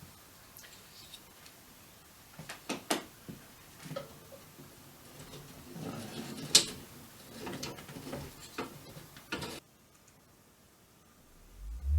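Handling noise: scattered clicks and knocks, the sharpest about halfway through. Near the end a loud pure test tone starts and glides upward from a low pitch, the start of a sine sweep played to measure a speaker panel's resonance.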